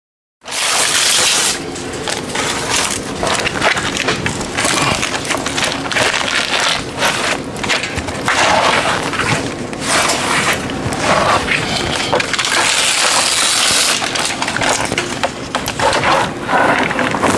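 Aluminium HVAC foil tape being peeled off its roll and pressed down along panel seams: continuous crackling and crinkling of foil, with louder hissing peels near the start and again about thirteen seconds in.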